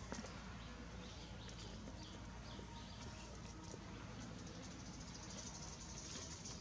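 Young chicks peeping faintly, a scatter of short high chirps.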